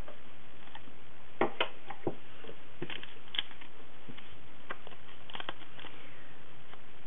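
Clear plastic stamps and an acrylic stamp block being handled on a table: scattered light plastic clicks and taps, the louder ones coming between about one and a half and three and a half seconds in, over a steady hiss.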